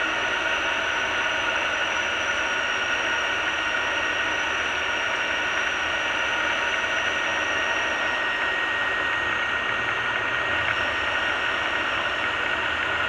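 Cockpit noise of a Diamond DA20 light aircraft in flight: its piston engine and propeller drone steadily, with thin, steady high-pitched tones on top.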